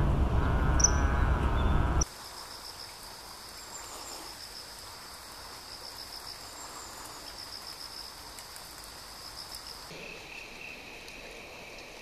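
Insects trilling steadily: a high, fast-pulsing trill that gives way near the end to a lower trill, over a faint outdoor background. A louder noise with a wavering tone fills the first two seconds and cuts off abruptly.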